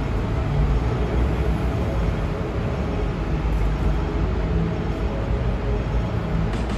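Steady low rumble of city street traffic, with buses passing, heard from a Hong Kong tram standing at a stop.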